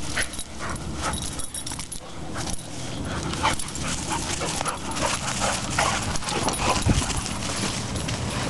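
A boxer and a boxer-Lab mix play-fighting, with short dog yips and barks scattered through.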